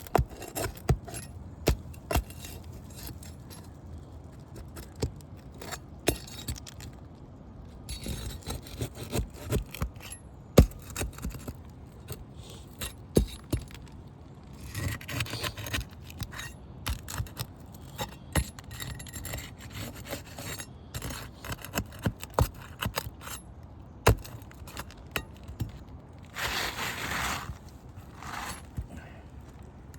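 Asphalt shingles being pried up with a roofing bar: scattered sharp clicks and knocks of metal on the shingles, with a couple of longer scrapes, one about halfway through and a louder one near the end.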